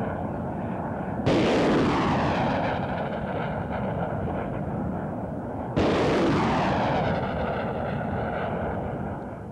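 Multiple Launch Rocket System firing two rockets about four and a half seconds apart. Each launch starts with a sudden loud roar that fades away over the next few seconds.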